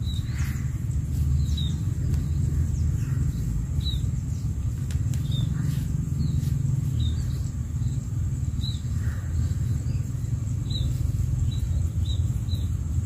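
Outdoor ambience: short high bird chirps every second or so and a steady high insect drone, over a low steady rumble.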